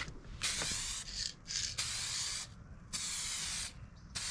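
Aerosol can of two-part clear coat spraying in short passes onto a plastic headlight lens: five separate bursts of hiss, each about half a second to a second long, with short pauses between them.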